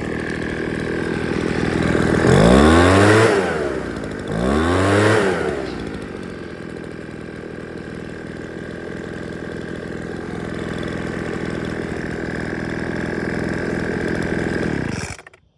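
Small gas leaf blower engine, freshly fitted with a new carburetor, spark plug and fuel lines, running at idle and blipped up to high revs twice in quick succession, its pitch climbing and falling each time. It then settles back to a steady idle until the sound stops abruptly near the end.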